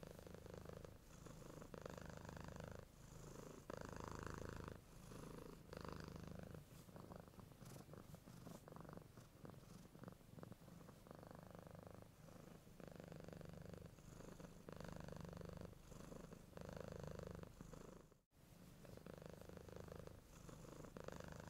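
A domestic cat purring in steady cycles, about one every one and a half to two seconds, while a mother cat nurses her kittens.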